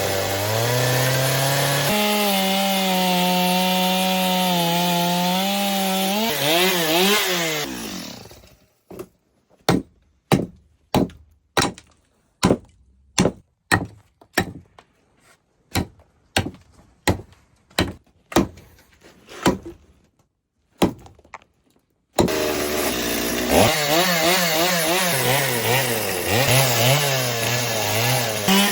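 Chainsaw cutting into wood, its engine pitch wavering under load, winding down about eight seconds in. A run of about twenty sharp knocks follows, roughly two a second, before the chainsaw cuts in again for the last several seconds.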